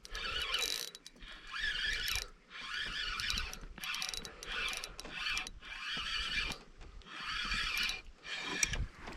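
Fishing reels being cranked in short bursts with small gaps between them, a whirring, ratcheting sound, as two hooked bass are reeled in at once.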